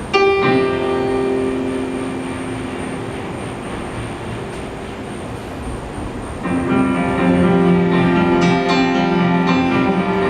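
Music: a steady hiss of noise under a pitched chord that starts suddenly and fades over a few seconds, then a fuller chord enters about six seconds in and is held.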